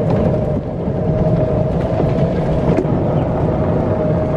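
Golf cart driving along, heard from on board: a steady motor whine over a low rolling rumble.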